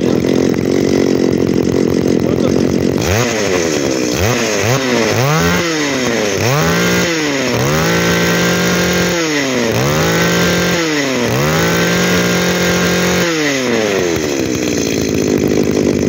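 Komatsu Zenoah G22 22cc two-stroke brush cutter engine, freshly started, idling for about three seconds, then revved in a few quick blips and several longer pulls held at high speed before dropping back to idle near the end. The seller says it sounds as strong as a 26cc engine.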